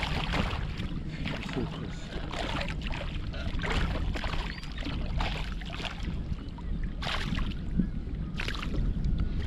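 Hooked pike thrashing at the surface close by, with irregular splashes and churning water again and again, over a low wind rumble on the microphone.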